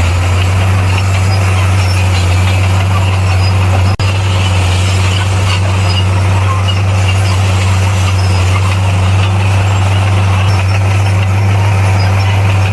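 A bulldozer's heavy diesel engine running steadily under load with a constant low drone, broken by a momentary dropout about four seconds in.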